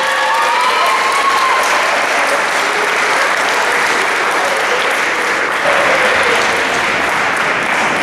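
Audience applauding steadily in a gymnasium hall, with a few voices calling out in the first couple of seconds.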